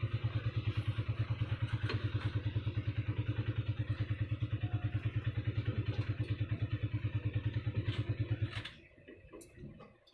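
Old Ruston Hornsby stationary diesel engine running with a steady, rapid pulsing beat; the sound cuts off abruptly about eight and a half seconds in.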